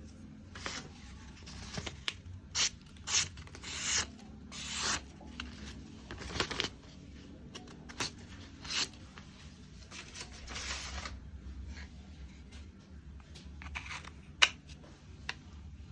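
Irregular scraping strokes, each a fraction of a second, about a dozen in all, with a sharp click or knock near the end that is the loudest sound.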